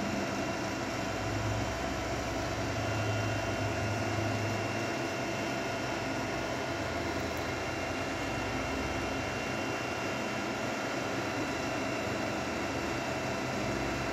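Steady whir and hum of the cooling fans and electronics in a rack of fibre-optic network equipment (OLT and optical amplifier units), with a few thin steady whining tones running through it.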